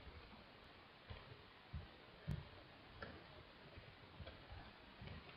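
Faint, irregular clicks of computer keyboard keys as a search is typed.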